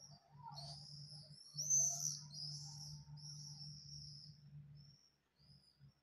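Common swifts screaming: shrill, high trilling screams from several birds, loudest about two seconds in and thinning out near the end. A low hum cuts in and out beneath them.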